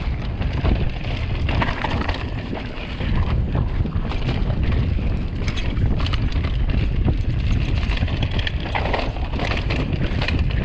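Mountain bike ridden at speed down a dirt singletrack: wind rumbling on the camera microphone and tyres rolling over dirt, with frequent clicks and knocks as the bike rattles over bumps.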